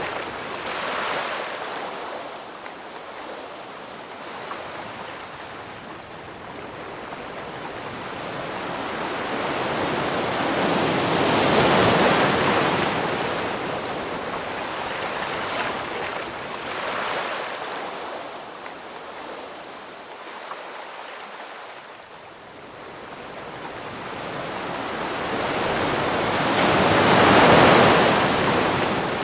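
Ocean waves breaking on a shore and washing back, in slow surges that swell and ebb; the two largest break about twelve seconds in and near the end.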